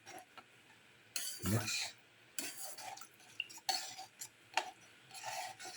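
Chicken soup being stirred in a pot after fennel powder and salt go in, the utensil scraping and clinking against the pot several times.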